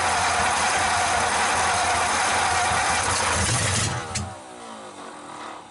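Hot-rod V8 engine running on open, unmuffled headers, a loud steady rattling rumble that cuts off about four seconds in.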